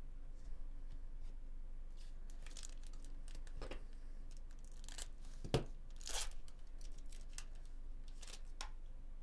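Foil wrapper of a 2024 Bowman Chrome baseball card pack being torn open and crinkled. It makes a string of irregular crackles, with a sharp snap about halfway through and a longer rustling tear just after.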